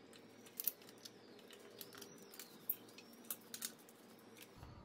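Faint, irregular metallic clicks and ticks as T40 Torx bolts are worked out of an electric scooter's deck with hand tools.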